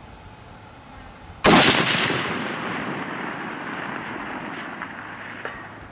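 A single rifle shot from a Howa HLR in 6.5 Creedmoor about one and a half seconds in, its report rolling away in a long echo that fades over about four seconds. Two faint clicks come near the end.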